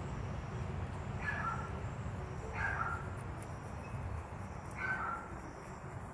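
An animal calls three times, short calls spaced a second or two apart, the first about a second in. Under it runs a steady low rumble, with faint high insect chirps repeating in the background.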